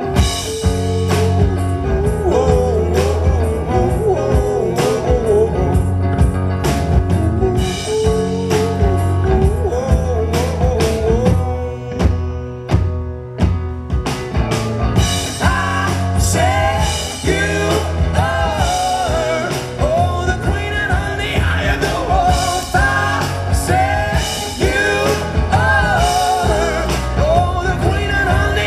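Live rock band playing: electric guitar, bass and drums, with a male voice singing over them in the second half. The band thins out briefly around the middle before the full sound returns.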